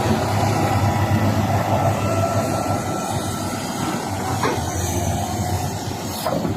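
Komatsu PC1250 excavator's diesel engine running steadily under work, a deep drone with thin whining tones above it, and two short knocks near the end.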